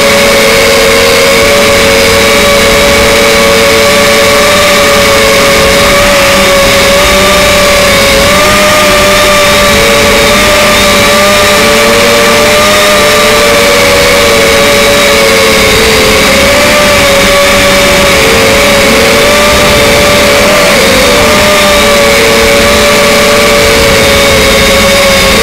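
Loud, steady whine of the RC Leading RC126's small electric motors and propellers in flight. It is two close pitches that drift slightly up and down with the throttle.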